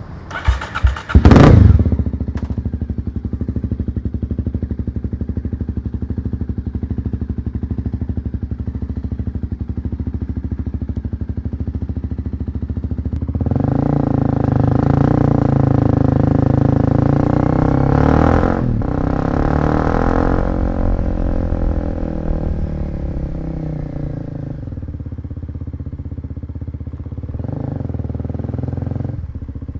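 Kawasaki KLX250 single-cylinder four-stroke engine catching with a few sharp bursts about a second in, then running steadily at idle. About halfway through it revs up and runs louder for around ten seconds, with a brief break near the middle of that stretch, then drops back to a lower steady run.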